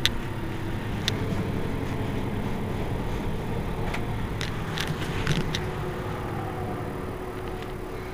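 Mercedes-Benz Citaro C2 Euro 6 city bus engine idling steadily at a stop, a low hum with a few sharp clicks, one at the very start and a small cluster a little past the middle.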